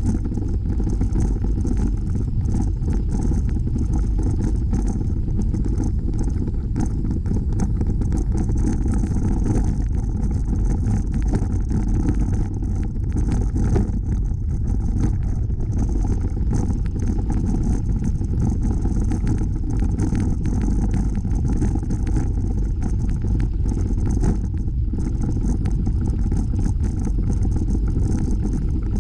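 Steady low rumble of a moving bicycle: wind buffeting the microphone together with the tyres rolling over the trail surface.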